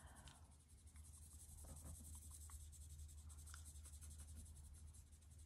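Faint scratching of a felt-tip marker colouring in on a paper card, over a low steady hum.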